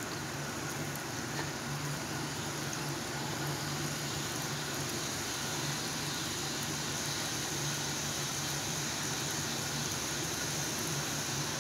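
Strands of gram-flour sev dough frying in hot oil: a steady sizzle that grows a little brighter about halfway through as more dough drops in, over a steady low hum.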